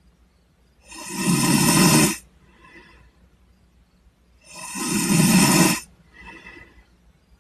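A person snoring in sleep: two loud snores, each just over a second long and about three and a half seconds apart, each followed by a faint breath.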